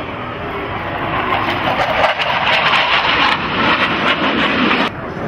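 The twin turbofan engines of a Blue Angels F/A-18 Hornet flying a pass, heard as a loud, rushing jet noise with crackle. It swells about a second and a half in, and the higher part cuts off abruptly near the end.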